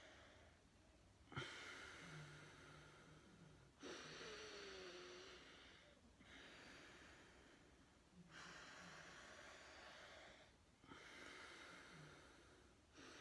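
Faint, slow breaths drawn in and blown out through one nostril at a time in alternate-nostril breathing (anulom vilom pranayama). About five airy rushes of roughly two seconds each, with short pauses between them.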